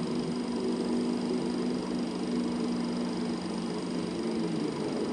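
Eumig Mark S 802 Super 8 sound projector running, with a steady mechanical hum and hiss, and low sustained tones from the film's soundtrack that fade about three and a half seconds in.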